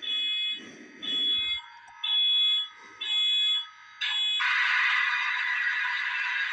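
Electronic beeps from a sound-equipped model train locomotive's speaker, about one a second and each about half a second long, then a steady hiss that starts about four seconds in.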